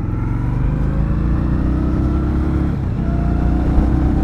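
2020 Indian Scout's 1133 cc V-twin engine accelerating hard through the gears: its pitch climbs, drops with an upshift a little under three seconds in, then climbs again.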